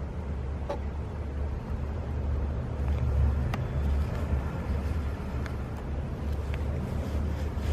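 Low, steady rumble of night-time street traffic over snow, with a few faint clicks.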